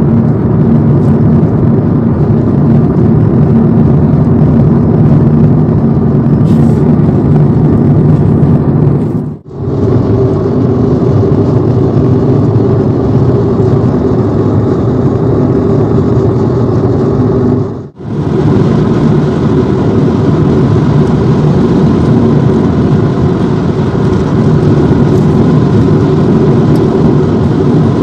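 Steady road and engine noise inside a moving car's cabin at highway speed: tyre roar with a low engine drone. The sound drops out very briefly twice, about nine and eighteen seconds in.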